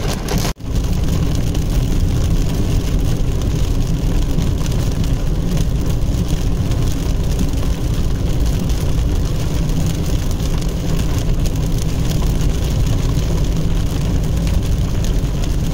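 Inside a car driving in heavy rain: a steady rumble of tyres on the wet road and wind, with rain hitting the windshield. The sound drops out briefly about half a second in, then the steady noise resumes.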